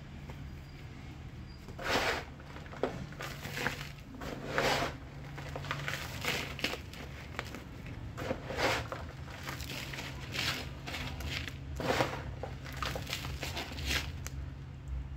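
Hands scooping potting soil from a plastic basin and dropping and pressing it into a plastic flower pot: irregular gritty rustles and scrapes every second or two, over a steady low hum.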